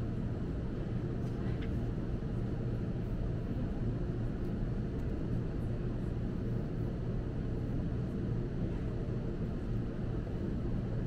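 Steady low rumble and hum of a large store's background noise, unchanging throughout.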